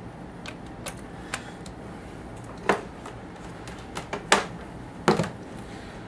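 Scattered sharp clicks and knocks, about seven of them, from a USB thumb drive being plugged into a laptop's USB port and the laptop being handled and clicked to open the drive.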